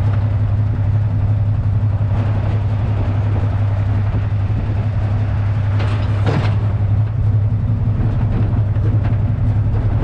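Semi-truck diesel engine running at low revs as the tractor reverses slowly toward a trailer, a steady low drone, with a brief rushing noise about six seconds in.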